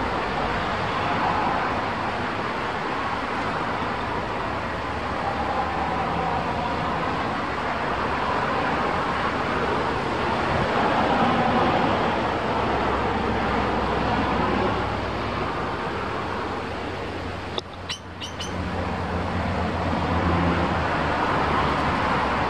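Steady wind noise with small swells. Near the end it drops briefly, and a quick run of a few short, high rosella chirps comes through.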